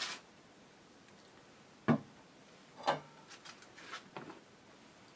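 Handling knocks and clicks as a steel pot and the motor-topped wooden lid of a plastic bucket are moved about, the two loudest knocks about two and three seconds in, followed by a few lighter clicks. The churn's motor is not running.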